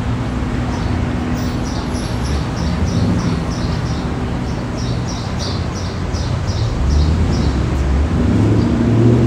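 Steady street traffic rumble that swells louder near the end as a vehicle passes, with a small bird chirping in quick runs of short, high chirps.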